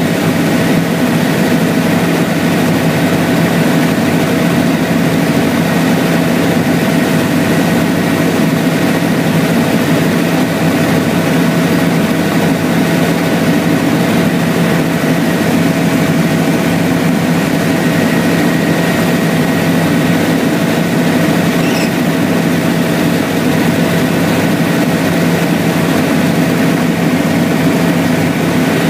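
Helicopter in cruise flight heard from inside the cabin: a loud, steady engine and rotor drone with a few constant whining tones over it.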